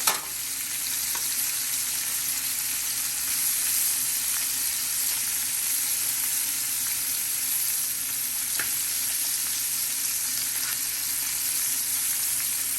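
Onions and mushrooms sizzling steadily as they sauté in butter and oil in a pan, with a sharp knock right at the start and a few faint clicks later on.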